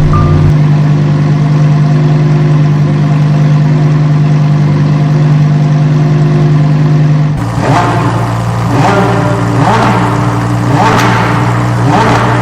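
Lamborghini engine sound effect: a steady, even drone for about seven seconds, then a string of quick revs, roughly one a second, to the end.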